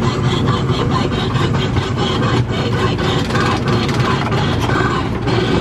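Casey Jr. Circus Train running along its narrow-gauge track, heard from a passenger car: a steady low rumble of the train and its wheels with some light clatter.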